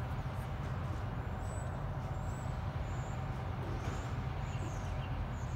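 Steady low mechanical rumble with a constant hum, with a few faint, high, short chirps scattered through it.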